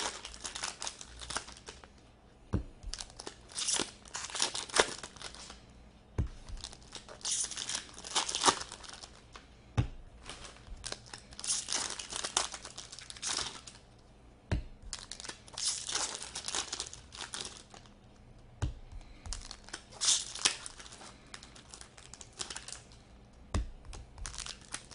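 Foil trading-card packs (Upper Deck SP Authentic hockey) being torn open and their wrappers crinkled, in repeated bursts every second or two, with a few sharp taps on the table between them.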